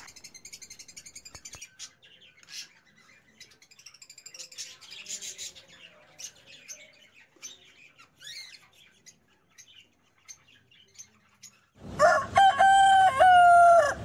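Faint, scattered chirps of budgerigar chicks, then about twelve seconds in a rooster crows loudly for about two seconds.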